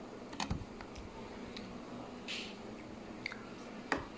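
A few sharp small clicks and a short hiss about two seconds in, over a low steady hum: quiet eating and sipping sounds from a child eating puffed potato crisps and drinking through a metal straw.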